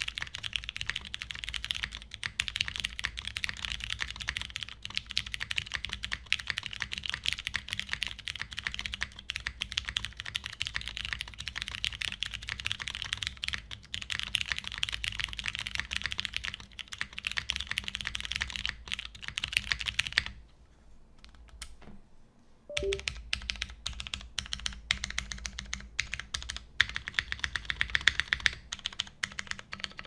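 DN 997.3 custom mechanical keyboard with lubed Ergo Clear tactile switches, a 2 mm polycarbonate plate and GMK keycaps being typed on quickly: a steady stream of key clacks. The typing stops for about two seconds a little past two-thirds through, then starts again.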